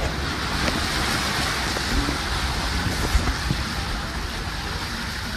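A car's tyres ploughing through standing floodwater on a highway, throwing up spray: a steady rushing hiss of water over the car's low rumble.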